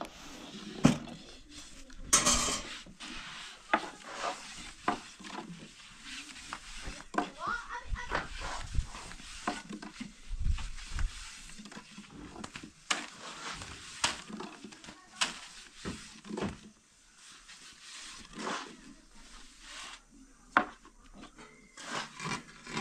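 Long, thin wooden rolling pins knocking and clacking against round wooden boards as thin flatbread dough is rolled out. The knocks come irregularly, a few each second, some sharp and loud.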